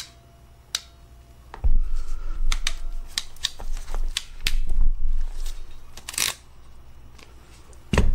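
Hand crimpers clamping a heat-shrink butt connector onto a multimeter lead wire: a run of sharp clicks from about two seconds in, over low handling rumble, as the tool is squeezed down to crimp the connector.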